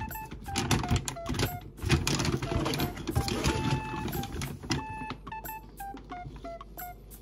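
A cat eating from a small bowl, crunching food in a quick run of crackles and clicks for a few seconds. Soft background music of short plucked notes plays under it.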